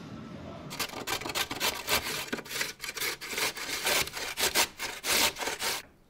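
Beetroot being grated on a stainless steel box grater: quick, irregular rasping strokes against the metal blades, starting just under a second in and cutting off suddenly near the end.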